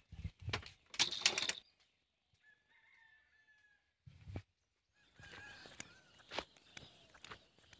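A rooster crowing faintly, one drawn-out crow from about two to four seconds in. Loud rustling and handling noise from the phone comes about a second in, and scuffs and light knocks of walking over the ground follow near the end.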